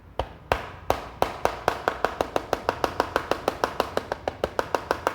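Rapid, even tapping on a motorcycle's hard plastic side cover, about six sharp knocks a second, each with a short ring.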